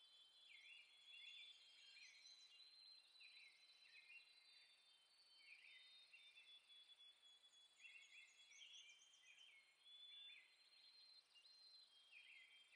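Faint outdoor birdsong: short chirping phrases repeated every second or two, over a low even hiss.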